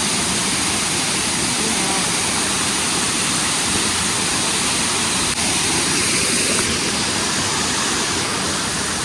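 Steady rush of a waterfall's falling water, even throughout, with a momentary break about five seconds in.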